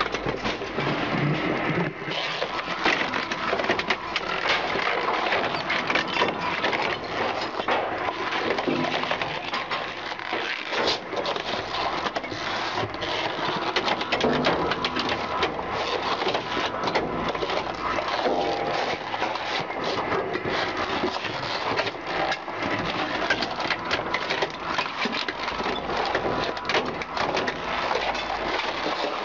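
Twin-shaft industrial shredder tearing up car tyres on their steel wheels: continuous grinding and crunching, packed with sharp cracks and knocks as the cutters bite into rubber and metal.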